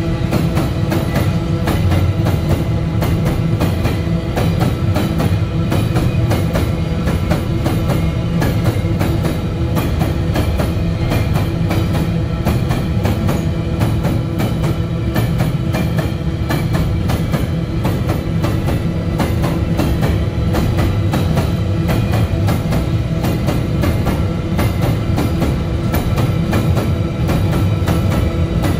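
A long train of empty iron-ore wagons rolling past. The wheels clatter fast and steadily over the rail joints, with a steady ringing tone above the clatter.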